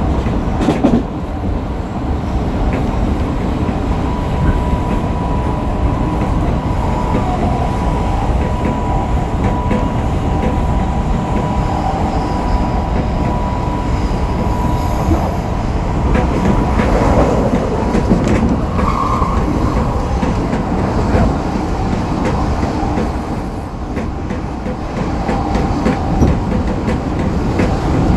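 Running noise inside a motor car of an Odakyu 3000-series electric train (Mitsubishi IGBT-VVVF inverter, six-pole induction motors) at line speed: wheels rolling on rail with scattered rail-joint clicks. Through the first half a steady high whine from the traction drive is heard.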